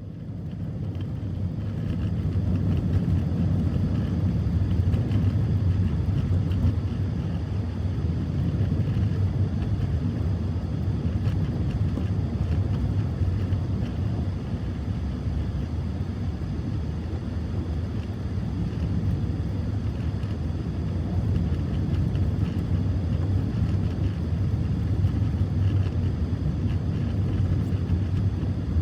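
Strong wind buffeting the microphone: a low, rumbling noise that swells and eases in slow gusts.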